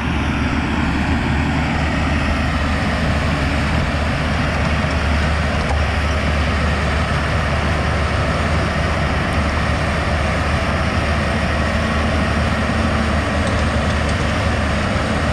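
Komatsu D51PX-22 crawler dozer's diesel engine running steadily while it grades backfilled dirt.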